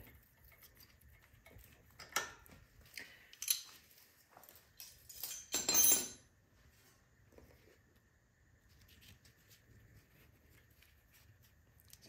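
Scattered light metallic clinks and rattles of hand tools and small engine parts being handled and set down, with one louder clatter about six seconds in.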